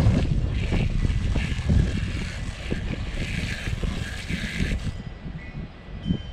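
Garden hose spray nozzle rinsing a plastic chicken waterer: a hiss of spraying and splashing water that stops about five seconds in. Wind rumbles on the microphone throughout.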